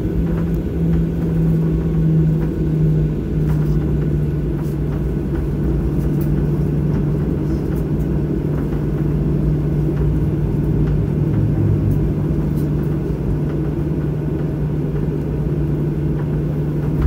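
Cabin noise of a jet airliner on its landing rollout: a loud, steady rumble of the wheels on the runway and the jet engines, with a steady low hum from the engines.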